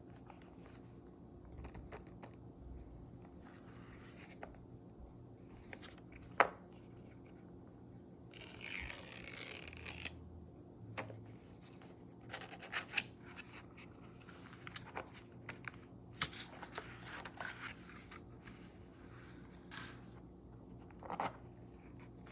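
Packaging being handled and opened: scrapes, rustling and small clicks. A sharp click about six seconds in is the loudest, and a longer rustle or tear comes about nine seconds in.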